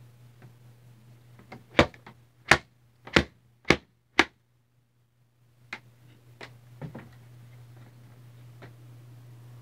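Five sharp knocks in quick succession about two to four seconds in, then a few softer knocks, over a steady low hum.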